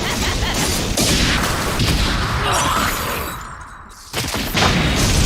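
Anime fight sound effects: a dense run of crashing, shattering impacts that fades away, then a sudden loud hit about four seconds in.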